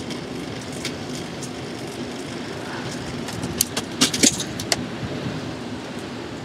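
Bicycle chain coming off the chainring: a burst of sharp metallic clicks and rattles lasting about a second, starting about three and a half seconds in. Under it runs the steady rolling noise of the bike with road traffic.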